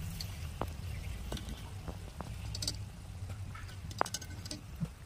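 Luchi deep-frying in hot oil in a metal karahi: a faint sizzle, with a few light clicks of a wire-mesh slotted spoon against the pan, the sharpest about four seconds in, over a steady low hum.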